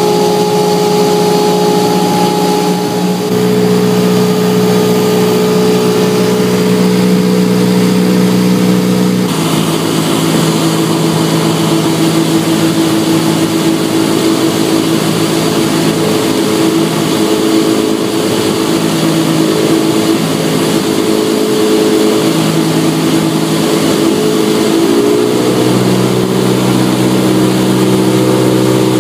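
Cessna 172's four-cylinder Lycoming engine and propeller droning steadily, heard inside the cabin. About nine seconds in the pitch drops as power is reduced, and near the end it rises slightly again as power is added.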